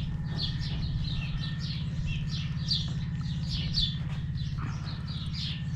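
Birds chirping steadily: a continuous run of short, descending chirps, about three a second, over a steady low hum.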